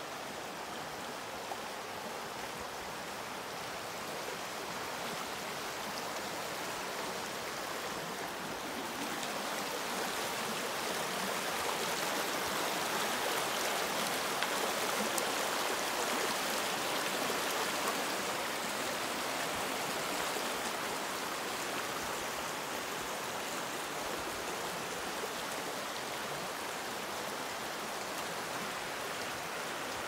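Shallow rocky river rushing over stones in small rapids: a steady rush of water that grows louder around the middle and eases a little toward the end.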